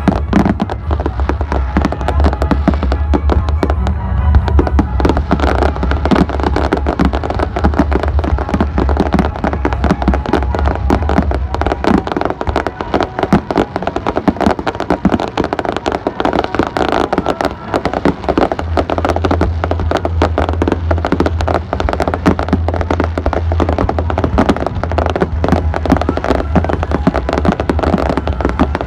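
Fireworks display: a dense, continuous run of bangs and crackling pops.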